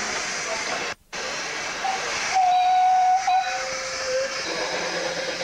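Steady steam hiss from a Quarry Hunslet steam locomotive's cylinder drain cocks, broken by a brief gap about a second in. About two seconds in a steam whistle sounds loudly for about a second, then drops to a lower note before stopping.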